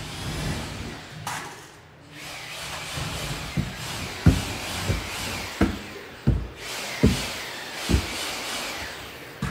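Footsteps thudding on bare wooden stairs and subfloor, about seven steps at walking pace, under a second apart, over a steady background rush.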